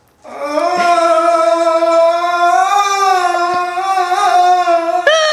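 A man singing one long held note as an improvised, Arabic-style vocal line, the pitch wavering slightly in the middle and breaking off near the end.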